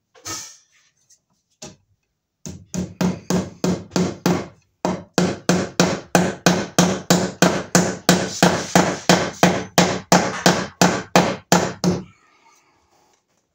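Hammer driving a cable staple into a wooden stud to hold electrical cable: a long run of quick, even blows, about three a second for roughly nine seconds, with a short break about two seconds in.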